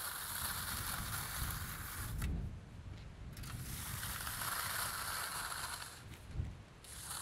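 Long-handled steel trowel scraping across the surface of fresh concrete in two long strokes, the first about two seconds long and the second from about three and a half seconds in until near the end, with a short pause between them as the stroke changes direction.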